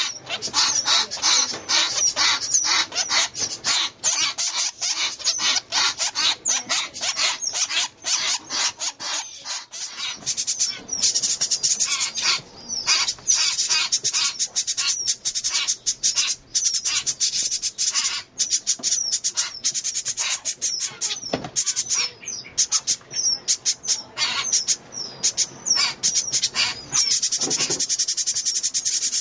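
Fledgling northern flicker and house wrens begging to be fed: rapid, insistent high-pitched chirping with hardly a pause.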